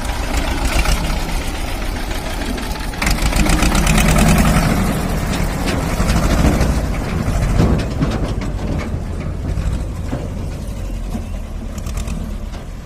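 Old Escort tractor's diesel engine running with a steady low rumble, swelling louder for a few seconds near the middle, with a rapid rattling clatter over it in the second half.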